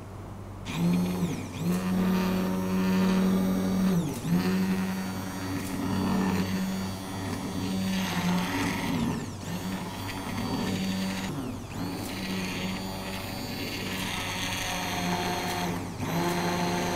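Panasonic immersion blender motor whirring as its blade purées cauliflower soup in the pot. It starts about a second in and runs in bursts, its pitch dropping and coming back up several times as it is eased off and on again.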